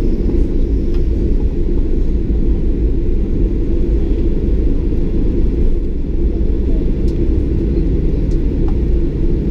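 Steady low rumble of a Ryanair Boeing 737 heard from inside the cabin as the jet rolls along the runway after landing, its engines running and its wheels on the runway.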